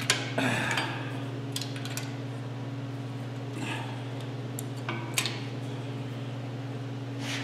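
Scattered metal clinks and taps as the heat-loosened pressure switch and fittings on an air compressor are turned and handled by hand with a wrench nearby, over a steady low hum.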